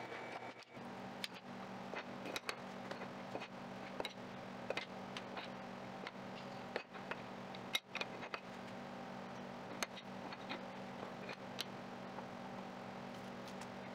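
Light wooden clicks and knocks of walnut strips being shuffled and set side by side on a wooden workbench, irregular and sharp, over a steady low hum.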